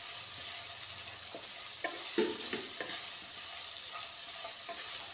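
Diced potatoes in spiced oil sizzling in a nonstick kadai as a wooden spatula stirs them, with several short scrapes of the spatula against the pan over a steady hiss.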